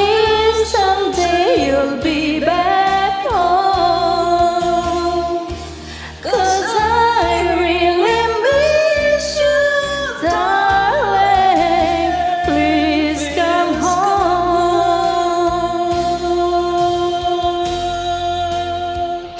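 A woman sings a long wordless vocal run over a karaoke backing track, her pitch sliding up and down in two phrases. The second phrase ends on a long held note.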